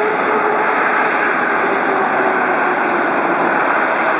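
Jet airliner's engines, a loud steady noise with a tone that slowly falls in pitch as the plane passes.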